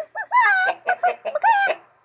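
Rooster clucking and bawking in a string of about four short pitched calls that each bend up and fall away, the longest two near the middle and near the end.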